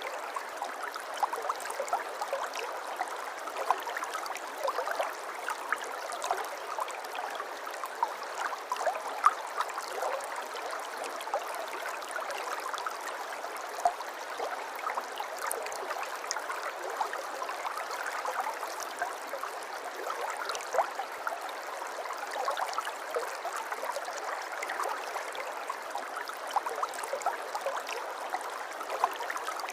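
A river flowing steadily: a continuous even rush of water flecked with many small, quick splashes.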